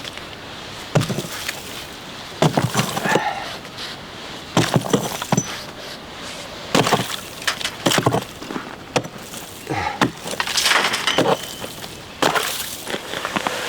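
Ice being broken: repeated sharp cracking and crunching blows, in irregular clusters about every second or two.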